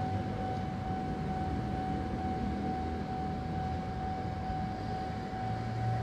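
Japanese railway level-crossing warning bell on the Randen tram line, ringing as one steady high tone over a low rumble that grows louder near the end.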